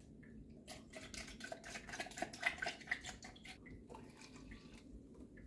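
Ice cubes clinking and liquid splashing in a plastic cup as oat milk is poured over the ice and stirred with a straw, in a quick run of small clinks lasting about three seconds.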